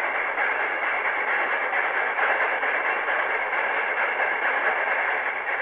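Marx 994 tinplate steam locomotive and its freight cars running around a loop of tubular O27 track. The electric motor, gears and wheels make a steady whirring rattle on the metal rails.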